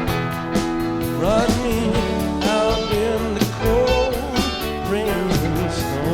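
Live rock band playing an instrumental passage: a lead electric guitar line with bending, sliding notes over drums and bass.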